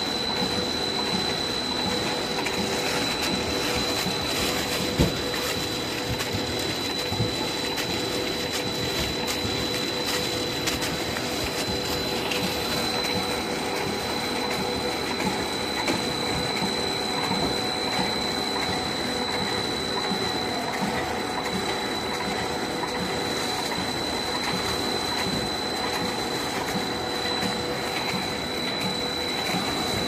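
Horizontal flow-wrap (pillow) packing machine running steadily, a continuous mechanical noise with a constant high whine and a fine rapid clatter. A single sharp knock comes about five seconds in.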